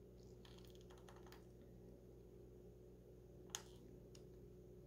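Near silence: faint room hum with a few soft small clicks, and one slightly sharper tick about three and a half seconds in.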